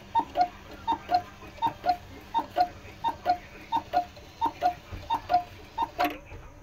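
Old cuckoo clock's bellows whistles sounding its two-note cuckoo call, a high note then a lower one, about nine times in quick succession, with the movement clicking. A sharp knock comes near the end as the calls stop.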